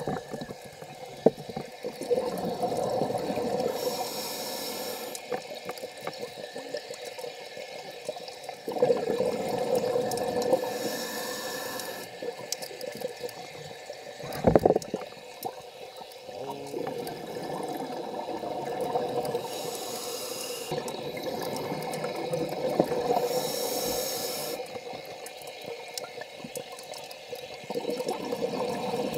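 Underwater sound of a scuba diver breathing through a regulator, heard through the camera housing: a steady muffled rush with a hissing surge every several seconds. There is one sharp knock about halfway through.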